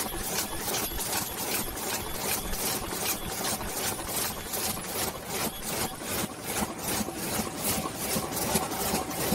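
DEBAO 138S high-speed paper cup forming machine running at about 150 cups a minute: a rhythmic clatter of about two and a half strokes a second as its rotary turret indexes cup after cup, over a steady machine hum and a faint steady tone.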